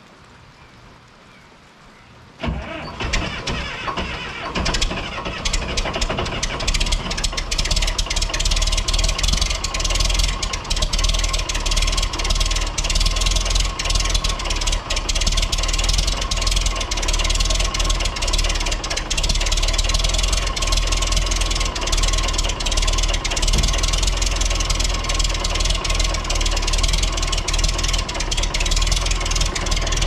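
Case 830 tractor engine starting cold: it catches suddenly a couple of seconds in, then runs steadily at idle while it warms up. Light rain hiss is heard before it starts.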